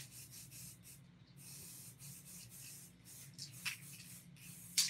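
Aerosol spray-paint can hissing in several short bursts, the longest about a second and a half in and lasting about a second, as paint is sprayed onto a stencilled canvas. A faint low hum runs underneath.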